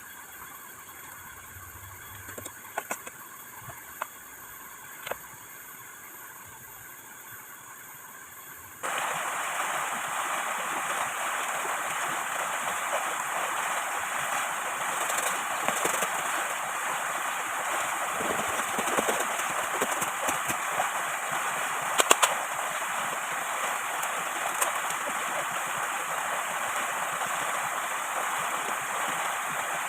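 A low, steady background with a few light knocks, then an abrupt jump about nine seconds in to a loud, steady rush of water that runs on, with a few sharp clicks in it.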